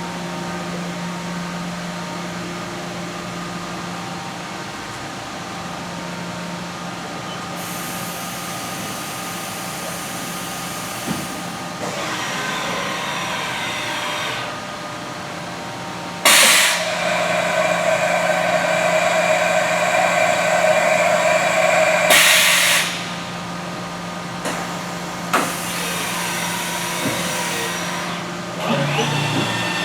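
Haas EC-1600 horizontal machining center running a program under power: a steady machine hum with several whining tones that shift as the axes move. Past the middle comes a louder hissing rush of about six seconds that starts and stops abruptly, and there are a few brief knocks.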